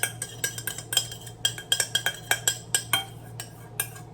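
Spoon scraping sauce out of a pot, a quick run of clinks and scrapes, about three or four a second, some with a short metallic ring.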